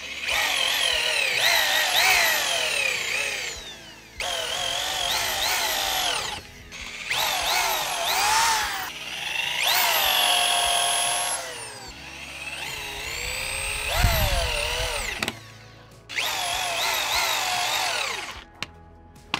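Power drill boring pilot holes and driving 3-inch deck screws into pressure-treated 4x4 lumber. It runs in about six bursts of a few seconds each, and within each burst the motor whine rises and sags in pitch as the trigger is worked and the bit loads up. A single sharp knock comes about fourteen seconds in.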